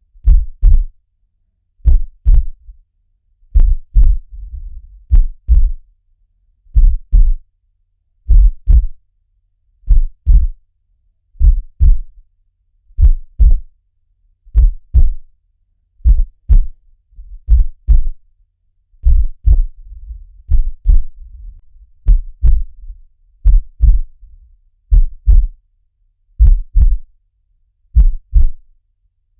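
Recorded heartbeat: a deep double thump (lub-dub) repeating slowly and evenly, about forty beats a minute.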